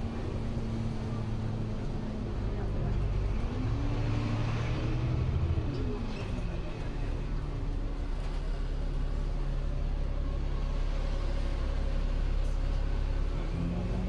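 Bus engine and drivetrain heard from inside the moving bus, a steady low drone over road noise, its whine rising in pitch about three seconds in and falling again a few seconds later as the bus changes speed.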